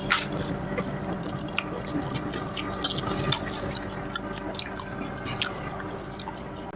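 Someone chewing mouthfuls of water-filled panipuri: soft wet squishes and scattered small clicks.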